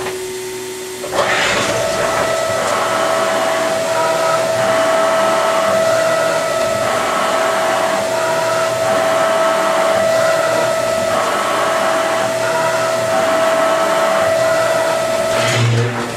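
Haas HS-1RP horizontal machining center cutting, with its spindle and tool running in a spray of coolant. A steady whine starts about a second in over a constant hiss of coolant and stops just before the end.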